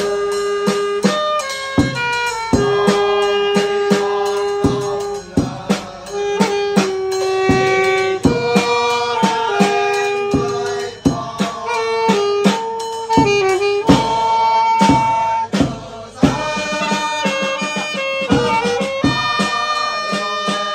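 Live band playing a slow melody on saxophones over a steady drum beat.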